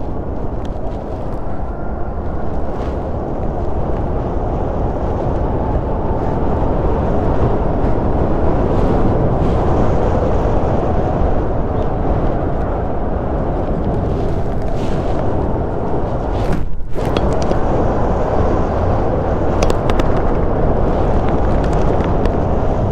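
Wind buffeting the camera microphone on a moving electric bike: a steady, low rushing noise that grows a little louder a few seconds in and cuts out for a moment about seventeen seconds in.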